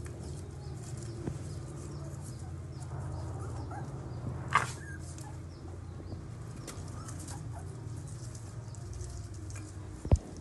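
Puppies moving about among cardboard and plastic scraps, with faint rustling and scuffing over a steady low background hum. There is a brief squeak about four and a half seconds in and a sharp knock near the end.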